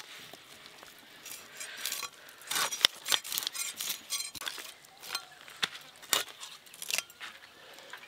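Fish being scaled and cleaned against a bonti, the curved blade fixed upright in a wooden base: a run of short, irregular scrapes and clicks as scales and flesh are rasped against the metal blade, with one sharper click near the middle.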